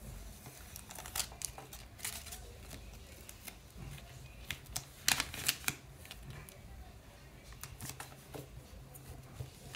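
A paper sticker being peeled off its backing and pressed down onto a paper page by hand: scattered soft crackles and rustles, with a few sharper crinkles about one and five seconds in.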